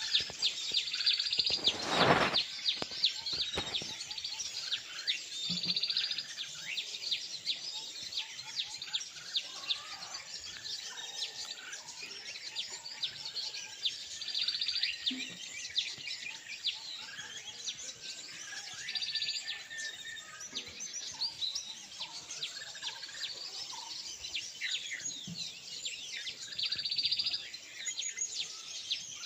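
Many small birds chirping and calling together in a busy, continuous chorus of short, rapid notes, with a brief thump about two seconds in.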